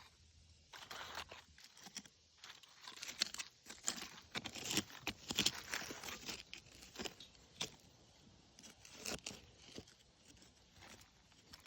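Irregular crunching and scraping of rocky dirt and quartz being dug through and loosened in search of a crystal. The strokes come in uneven bunches, busiest in the middle.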